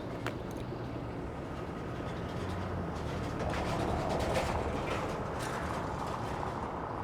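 Street traffic: the steady rumble of a vehicle passing, swelling a little around the middle and easing off again.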